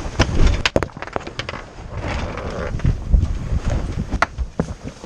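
Irregular sharp knocks and clatter, a quick cluster about a second in and another near the end, over a low wind rumble on the microphone, aboard a small sailboat as its autopilot throws it into an unintended tack.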